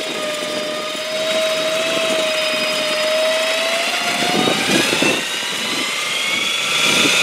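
Off-road buggy's engine running under load as it drives up out of the water under its own power, the winch line slack. A steady whine gives way to a higher whine that climbs in pitch over the last three seconds.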